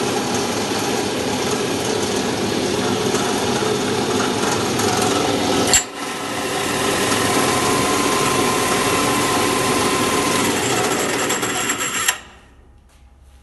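KTF-6M copy-turning and milling machine for wooden balusters running, its disc milling cutter and spindle giving a loud, steady mechanical din. About six seconds in there is a sharp click and the sound dips briefly, then it runs on and cuts off about twelve seconds in.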